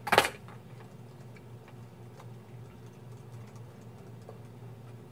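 One knock right at the start, then soft, scattered key clicks of typing on a laptop keyboard over a low steady room hum.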